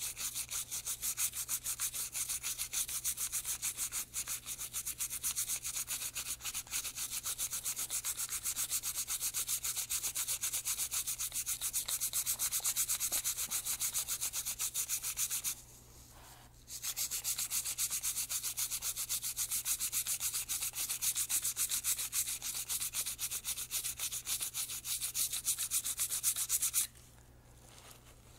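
Toothbrush scrubbing lead and carbon fouling off a rimfire suppressor part, a fast back-and-forth rasping scrape. It pauses for about a second around the middle and stops shortly before the end.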